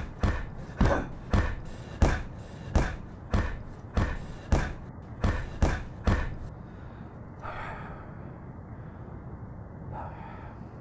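A run of heavy thumps, a little under two a second, about a dozen in all, stopping about six seconds in; after that two short faint sounds follow over a low steady background.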